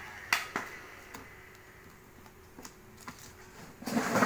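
Hands working vinyl sticker onto a plastic sign board: a few sharp clicks and light taps, then a louder scraping rustle near the end.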